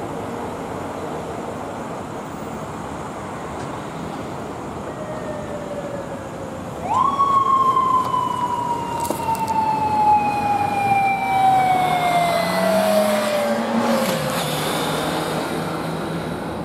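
A police motorcycle's siren is switched on about seven seconds in. Its pitch shoots up quickly, then falls in one long, slow wail, over steady city traffic. A lower engine note rises and then drops near the end.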